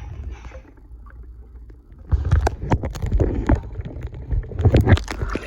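Water splashing and sloshing around a sinking Lego boat, with sharp knocks. It gets louder and busier about two seconds in.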